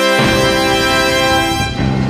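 Orchestral background music with long held chords that change shortly after the start and again near the end.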